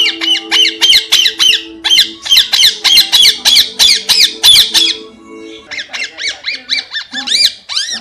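Rose-ringed parakeet giving a fast run of high, shrill screeching calls, about five a second. The calls stop briefly about five seconds in, then come back quieter, with a few louder ones near the end.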